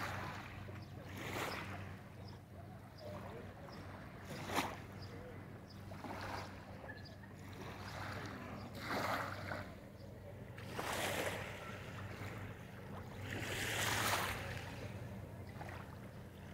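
Small waves lapping and washing onto a pebbly sand shore, each wash swelling and fading every two to three seconds, over a faint steady low hum. There is one sharp tap about four and a half seconds in.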